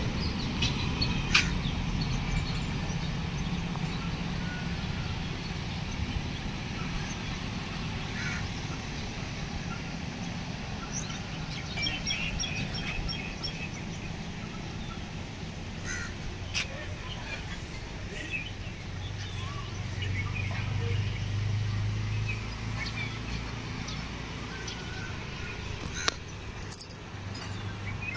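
Outdoor town ambience: scattered bird calls, crows among them, over a steady low rumble, with a couple of sharp knocks near the end.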